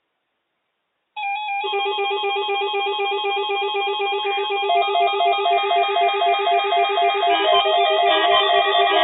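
Music with fast, evenly repeating plucked, ringtone-like notes, starting suddenly about a second in and slowly growing fuller and louder.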